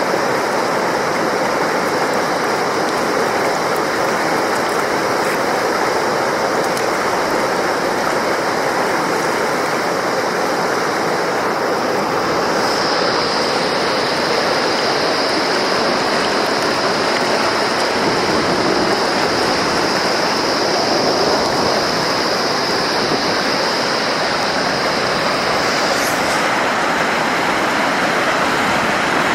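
Madhuganga, a fast Himalayan river, rushing steadily over its bed, with a thin high whistle above the rush that grows louder about halfway through and fades back near the end.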